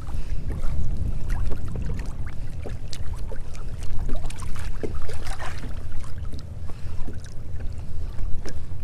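Water splashing and sloshing as a red drum is held by the tail at the surface beside a kayak and released, many small splashes from the fish and hand, over a steady low rumble.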